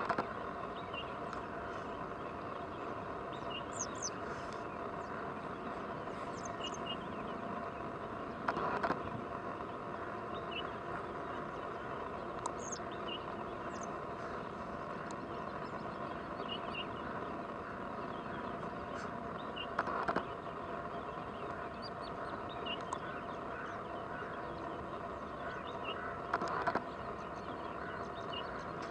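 Steady outdoor background hum with short, high bird chirps scattered through it, and three brief louder noises about 9, 20 and 27 seconds in.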